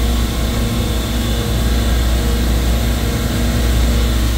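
Steady, loud drone of running refrigeration machinery in a supermarket compressor room, with a strong low hum.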